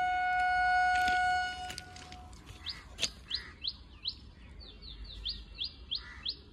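A steady high-pitched tone holds for the first two seconds, then small birds chirp in a quick run of short, falling chirps.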